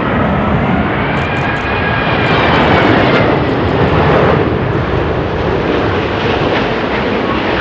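Airbus A380's four Rolls-Royce Trent 970 turbofans on landing approach, passing low overhead: a loud steady jet roar with a high fan whine over the first three seconds.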